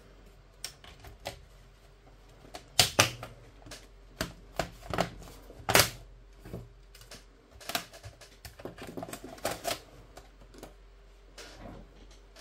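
Plastic bottom cover of an HP 15-da laptop being pressed down onto the chassis, its snap clips clicking into place: a series of sharp clicks, the loudest about three and six seconds in.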